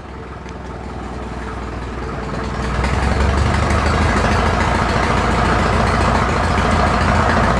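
Tractor engine running as the power source for a flat-belt sawmill, getting louder over the first three seconds and then steady, as the crew ready to bump the clutch to free a saw blade jammed in the log.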